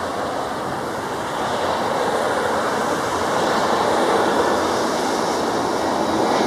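Jet engine noise of a Pelita Air Airbus A320 on final approach, a steady rushing sound that grows slowly louder as the airliner comes closer.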